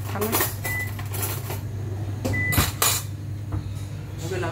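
Kitchen clatter of dishes and utensils being handled: several sharp clinks and knocks, two of them leaving a brief ringing tone like a spoon against a bowl, over a steady low hum.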